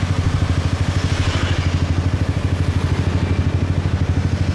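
Motorcycle engine running at low road speed as the bike is ridden, a steady low note with a rapid even throb. A brief rise of hiss comes in about a second in.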